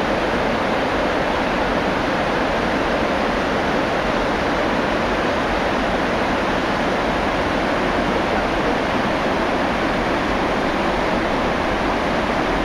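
Steady rush of a small rocky stream, water tumbling over stones.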